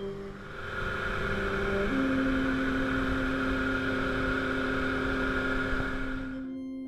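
Motorboat running at speed: a steady rush of engine and churning wake water, which cuts off suddenly near the end. A held musical note sounds underneath it from about two seconds in.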